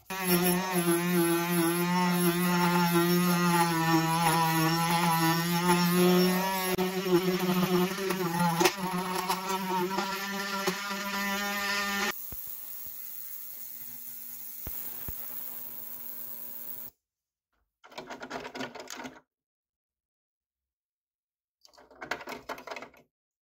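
Small handheld rotary tool (Dremel-type) with a cutting disc, running at high speed: a steady whine whose pitch wavers slightly as the disc is worked against the part. About twelve seconds in it drops to a quieter hum, followed by two short buzzes near the end.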